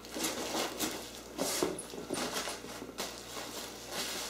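Bubble wrap and packing material rustling and crinkling as wrapped parts are shifted around in a cardboard box, in a run of short, irregular bursts.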